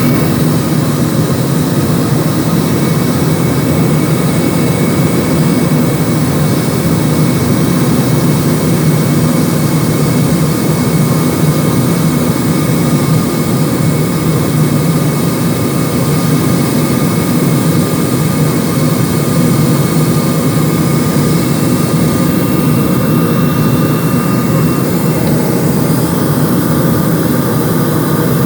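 Steady engine and airflow noise of an airplane in flight, heard inside the passenger cabin, with a few faint steady tones above it.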